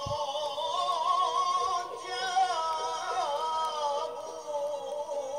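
Arabic song with a sung mawwal: one long, ornamented vocal line whose pitch wavers and slides over a musical accompaniment.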